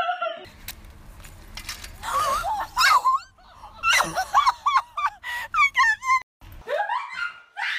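A man's laugh cuts off about half a second in. Then come high-pitched laughing and squealing voices in short wavering bursts, over a low rumble on the microphone.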